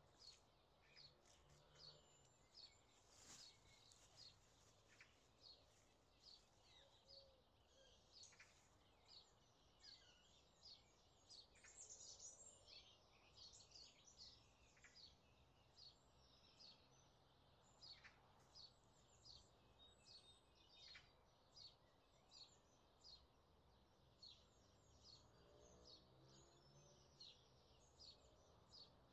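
Faint birdsong: short, high chirps repeated about once a second, with a livelier flurry about twelve seconds in.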